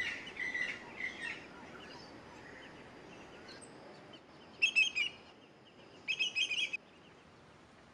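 Bird calls: faint high calls in the first second or so, then two short bursts of rapid, high-pitched notes, the second about a second and a half after the first.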